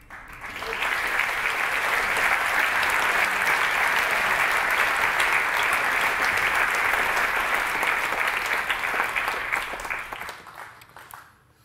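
Audience applauding: the clapping builds up over the first second, holds steady for about nine seconds, then dies away near the end.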